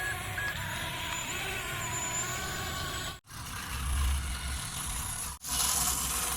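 A truck's reversing beeper ends with a last beep about half a second in, followed by a truck engine running. The sound breaks off abruptly twice, with a deeper rumble between the breaks.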